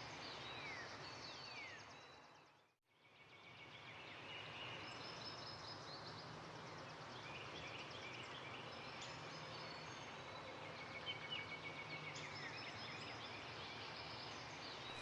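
Outdoor ambience of birds chirping, with short falling whistles and trills, over a steady background hiss. The sound fades out briefly about three seconds in and then returns.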